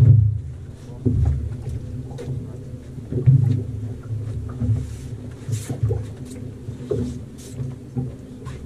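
Wind buffeting the microphone aboard a boat in uneven low gusts, over a steady faint hum, with scattered small knocks and clicks.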